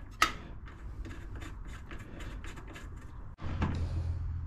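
Spark plug being refitted to a snowblower engine: a sharp metallic click, then a run of light ticks as the plug is threaded in by hand and a plug socket is set over it. A steady low hum comes in near the end.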